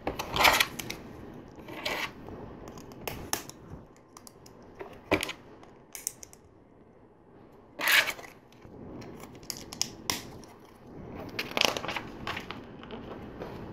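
Plastic LEGO bricks and plates being handled and pressed together: scattered clicks and short rattles, with louder ones about half a second in, around eight seconds and again near the end.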